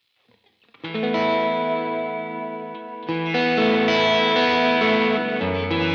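Electric guitar played through a UAFX Enigmatic amp pedal, with chords ringing out under light overdrive. Playing starts about a second in, and a new chord is struck about three seconds in.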